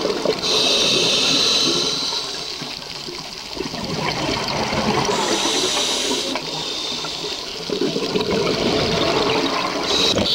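Scuba diver breathing through a regulator, heard underwater: a hiss with each inhale, three times about five seconds apart, and a rush of exhaled bubbles between them.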